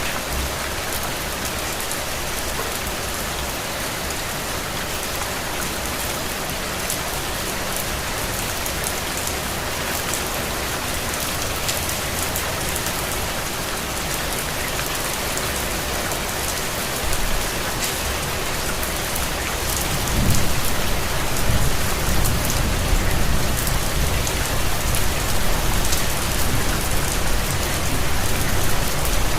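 Steady, heavy rain falling on a surface, an even hiss of many drops. About two-thirds of the way through, a low rumble joins in and the sound grows louder.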